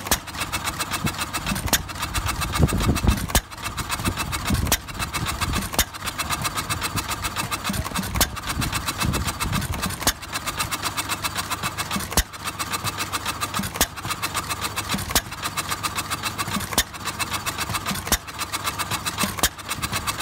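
1925 Cooper single-cylinder stationary engine running. A sharp firing stroke comes every one to two seconds, unevenly spaced, over a fast steady clatter of the engine turning over, typical of a hit-and-miss governed engine.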